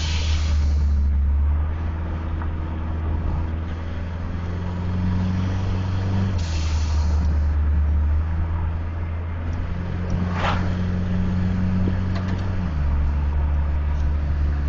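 Turbocharged 1989 Dodge Caravan's 2.5-litre four-cylinder engine heard from inside the cab while driving. The engine note drops abruptly at the start, again about six seconds in and again near the end, each time with a short hissy rush at the first two drops. A brief sharp sound comes about ten seconds in.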